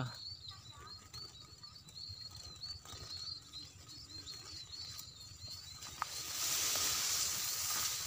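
Munias (emprit) caught in a mist net calling in a quick, steady series of thin high chirps. About six seconds in, a loud hiss rises over them and holds to the end.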